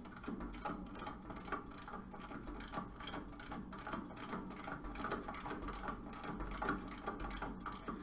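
Ratcheting HVAC service wrench clicking in an irregular run of clicks as it is worked back and forth to open a refrigerant service valve on an air-conditioning condensing unit.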